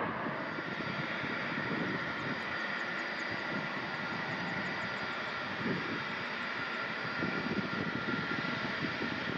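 Boeing 747SP's jet engines running, a steady rush of noise with a high whine held through it.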